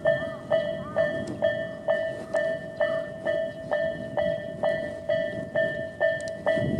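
Japanese level-crossing electronic warning bell of the Tobu 'sound A' type ringing a steady ding-ding, about two strokes a second, warning that a train is approaching. A low rumble runs underneath.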